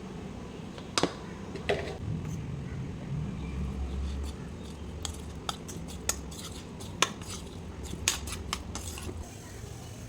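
Metal cooking utensil knocking and clinking against a pan, a dozen or so sharp irregular clicks, over a steady low hum.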